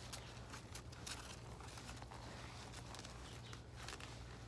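Faint scratching and rustling of a goalie's hard-shell knee pad and its Velcro straps being handled and fastened, in short irregular scrapes over a steady low hum.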